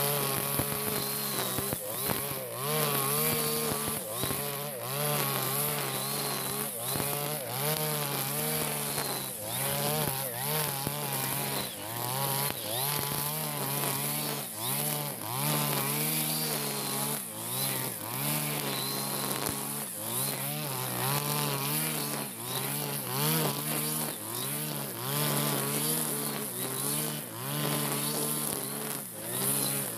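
Backpack petrol brush cutter's small two-stroke engine running at high revs while cutting grass, its note dipping and recovering about once a second as the head swings through the grass. The engine has just been serviced and is running with full power.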